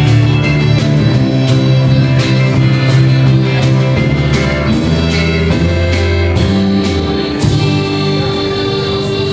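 Live country band of electric and acoustic guitars, bass guitar and drum kit playing, with regular drum hits. About seven and a half seconds in, the drumming thins out and held chords ring on.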